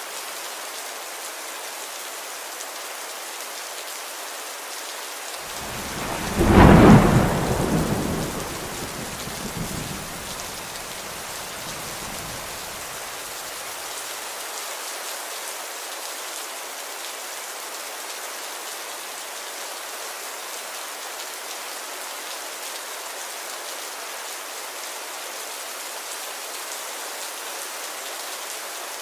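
Steady rain hiss with one clap of thunder about six seconds in, which rumbles and fades away over the next several seconds.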